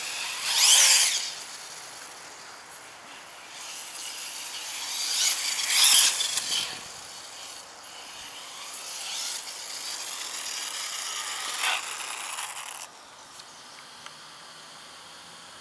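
Electric motor and drivetrain of a radio-controlled car whining as it is driven hard across the grass. The pitch rises and falls in three main bursts as the throttle is worked, then cuts off about thirteen seconds in.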